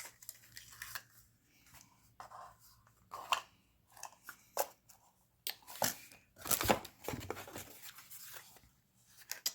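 Packaging being handled and unwrapped: irregular rustling, tearing and crinkling with small clicks. The loudest rustling comes about two-thirds of the way through.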